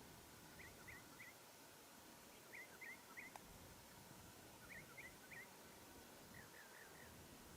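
Near silence with a faint bird chirping in the background: short phrases of three quick chirps, repeated about every two seconds, and a softer run of four notes near the end. A single faint click about halfway through.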